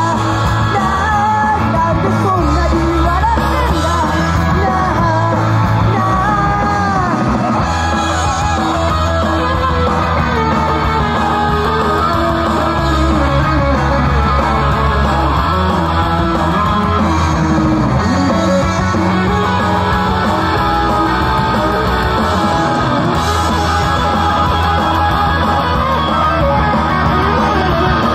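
Rock-style idol pop song performed live: female group vocals singing over loud, steady guitar-driven music.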